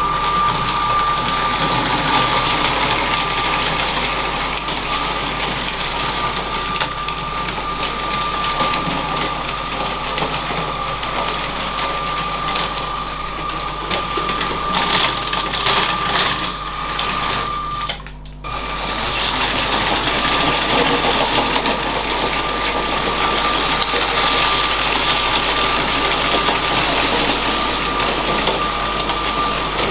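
LEGO train's electric motor running with a steady high whine while the wheels click over the plastic track. The sound briefly drops away about 18 seconds in, then picks up again.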